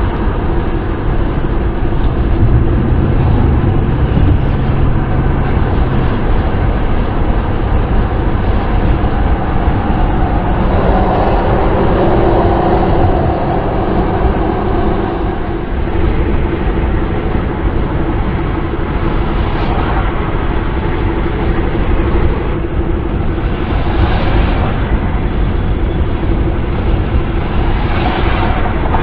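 Steady wind and road noise of a car driving, a dense, even rush over a low rumble, with a few brief swells in the noise.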